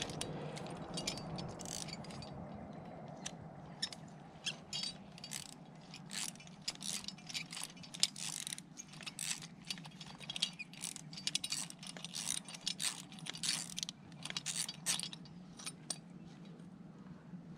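Spanner turning the nut of a sleeve-anchor bolt in rock, with the steel hanger and quickdraw carabiner clinking: a string of irregular sharp metallic clicks and jangles. The bolt spins in its hole instead of tightening.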